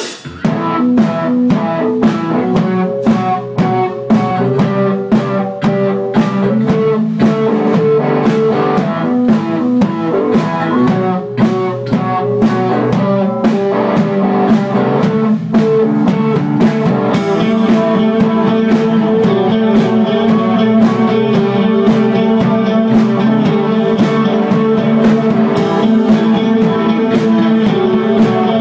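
Band playing an instrumental rock passage on electric guitar, bass guitar and drum kit, with a steady drum beat and held guitar notes.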